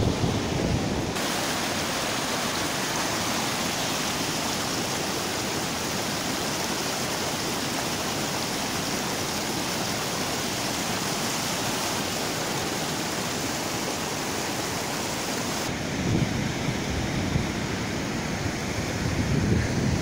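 Fast-flowing stream rushing steadily, a constant even roar of white water. In the last few seconds wind buffets the microphone with low rumbles.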